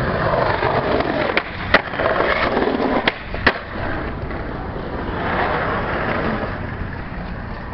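Skateboard wheels rolling over brick pavers, a steady rumble, with four sharp clacks of the board in the first half.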